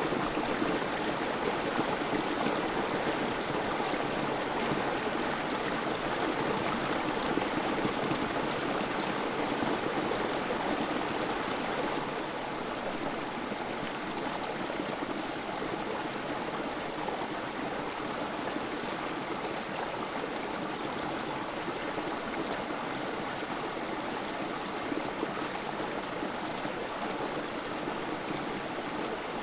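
Creek water trickling and splashing over rocks in a small cascade, a steady rushing flow that eases a little about twelve seconds in.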